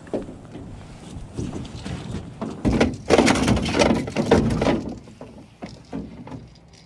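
Knocks, scrapes and rustling as a landed salmon and the landing net are handled on the drift boat's floor, loudest for about two seconds in the middle.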